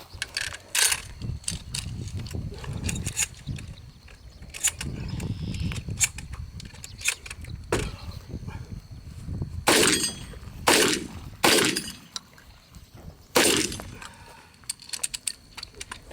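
Semi-automatic shotgun firing at steel targets: single sharp shots, the loudest about a second in and a run of four between ten and fourteen seconds in, with fainter clicks and knocks in between.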